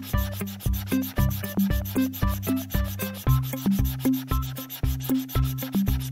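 Rhythmic scratchy rubbing strokes, like a crayon scribbling on paper, several strokes a second, with low pitched notes changing underneath.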